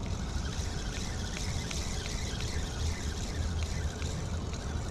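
Lew's spinning reel being cranked to retrieve a small crankbait: faint regular ticks, about three a second, over a steady hiss and low rumble.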